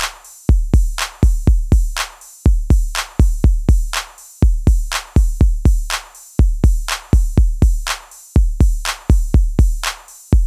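Electronic background music with a steady drum-machine beat and a deep kick drum.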